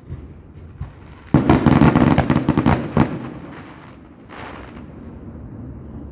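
Aerial fireworks: a rapid volley of crackling bangs starts about a second in and lasts nearly two seconds, followed by a short hiss.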